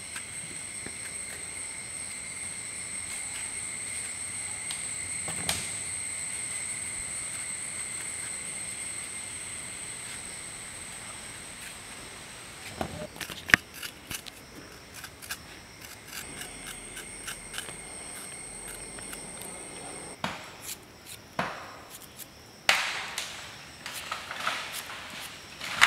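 An insect calling with a steady high buzz that stops about 20 seconds in. Over the second half, a large knife makes short scraping and cutting strokes through raw vegetables as they are peeled and sliced, with the loudest strokes in the last few seconds.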